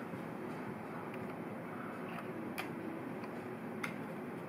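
A few light clicks of a 1:18 scale diecast model car's doors being swung open on their hinges, the two sharpest about a second and a quarter apart, over faint steady room noise.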